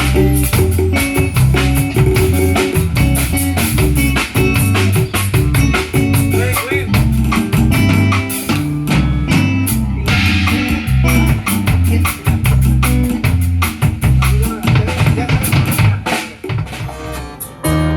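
Live band playing an instrumental passage with drum kit and bass, the drums carrying the rhythm with rimshots and kick drum. The playing thins out briefly near the end before the full band comes back in.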